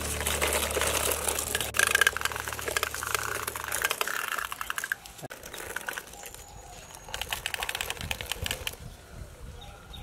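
Rapid gritty rattling and clicking of plastic toy dump trucks being pushed over sandy paving stones. A held low note of background music stops about four seconds in.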